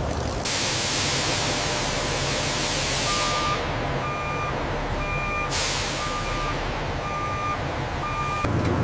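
Truck backing up: its reversing alarm beeps about once a second from about three seconds in. Two sudden bursts of air-brake hiss come about half a second in and again after about five seconds.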